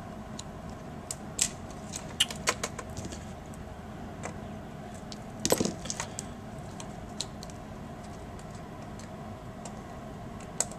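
Small metallic clicks and taps from handling tiny screws and a screwdriver on an opened laptop, scattered irregularly, with a louder clatter about five and a half seconds in.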